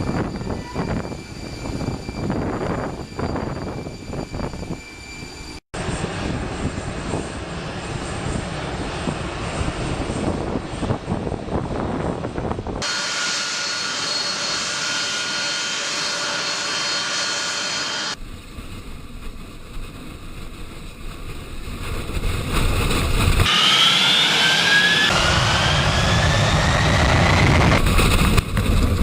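Jet aircraft engines running, in several cut-together segments, with a steady high whine in one part. About two-thirds of the way through, an engine whine rises in pitch as the engine spools up.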